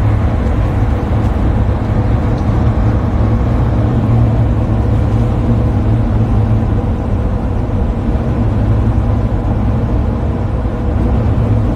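Road noise inside a moving vehicle's cabin: a steady low rumble.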